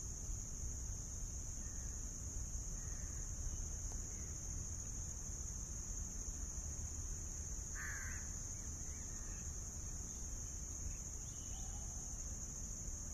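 Outdoor insect chorus: a steady, high-pitched drone that does not let up. A single short bird call stands out about eight seconds in, with a few fainter calls scattered around it, over a low background rumble.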